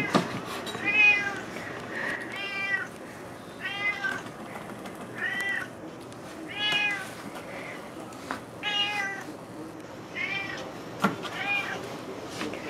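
Domestic cat meowing over and over, begging for the salmon being cut: about ten meows, roughly one every second or so, each one rising and then falling in pitch.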